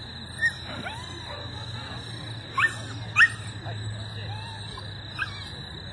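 A dog giving short, high-pitched barks while running an agility course: four sharp yips that rise in pitch, two of them in quick succession midway.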